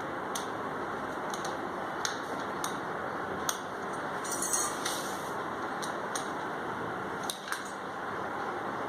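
Scattered light metallic clicks and clinks, about a dozen, from a screw being fitted by hand into the threaded metal rod of a TV wall-mount clamp, over a steady background hiss.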